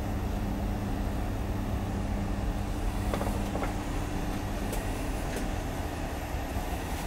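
Cabin sound inside a VR double-deck InterCity carriage: a steady low rumble with a humming tone that fades out about halfway through, and a few faint clicks.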